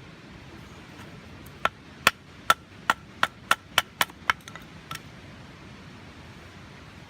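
A knife chopping on a cutting board: about ten sharp knocks in a row, coming faster as they go, each with a short ring.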